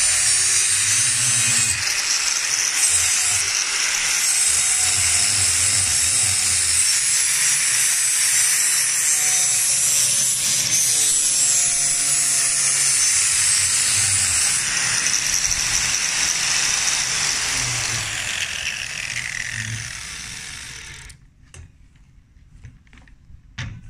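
DeWalt angle grinder with a flap disc grinding along the edge of a steel bar, a steady loud rasping run. Near the end the grinder is switched off and its whine falls away as the disc spins down, followed by a few faint knocks.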